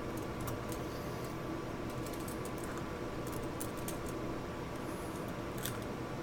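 Scattered light clicks and taps of small metal and polymer Glock pistol parts being handled and fitted by hand, over a steady background hiss.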